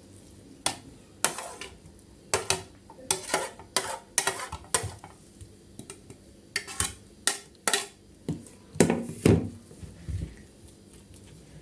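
Kitchen dishes and utensils clinking and knocking in irregular clatters, with a couple of heavier knocks near the end.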